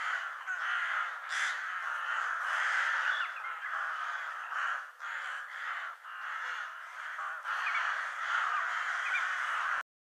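A flock of crows cawing together, many caws overlapping in a dense chorus that cuts off suddenly near the end.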